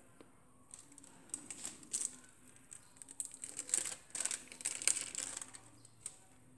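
Plastic film crinkling and rustling in short, irregular bursts with small clicks, as hands handle slices of sandwich cheese and lay them on a plastic-wrapped tray.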